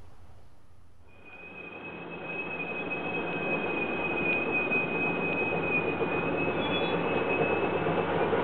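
Recording of a real steam-hauled passenger train, the Banetsu Monogatari, approaching. Its wheels give a steady high-pitched squeal on the rails that starts about a second in and stops shortly before the end, over the running noise of the train, which grows louder.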